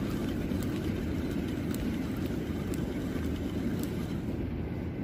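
Steady low rumble, with faint ticks roughly once a second.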